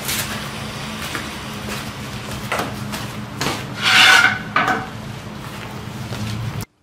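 Wooden board scraping and rubbing across a concrete floor in a few strokes, the loudest about four seconds in, over a steady low hum. The sound cuts off abruptly near the end.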